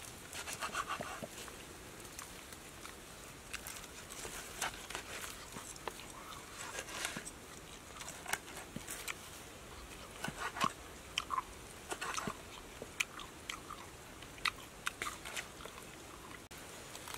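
A knife cutting through the charred, crisp skin and meat of a roasted pig leg on a wooden cutting board: irregular crunches and clicks, some of them the blade meeting the board.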